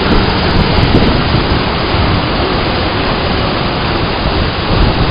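Waterfall: a loud, steady rush of falling water with a deep rumble underneath.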